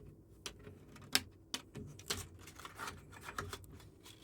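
Handling noise from a large PC case being handled and opened up: an irregular run of sharp clicks and light knocks mixed with rubbing and rustling.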